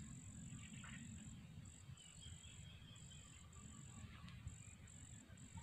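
Faint insect trilling: a high, steady buzz broken by short, irregular gaps, over a faint low rumble.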